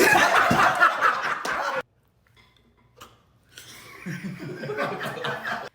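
Human vocal sounds: a loud, rough vocal burst at the start, a pause of near silence, then laughing in quick short pulses.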